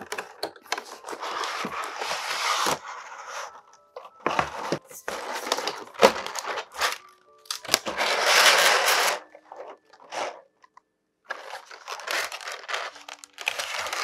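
Cardboard figure box opened and clear plastic blister trays slid out and handled, crinkling and scraping in several bursts of one to two seconds with short pauses between.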